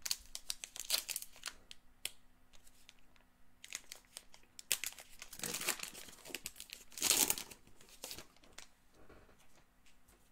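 Crinkling and tearing of a Topps Heritage Minor League baseball card pack wrapper as it is ripped open by hand, in irregular crackling bursts. The loudest crinkle comes about seven seconds in.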